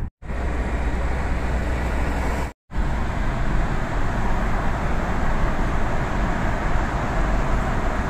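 Steady road and tyre noise inside a moving car, an even rush. It drops out completely twice for a moment, right at the start and about two and a half seconds in, and is fuller after the second gap.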